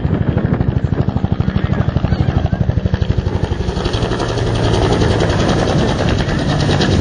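Bell UH-1 Iroquois (Huey) helicopter in flight, its two-bladed main rotor beating at about ten thumps a second over the turbine's running. After about three seconds the beat blends into a steadier rush.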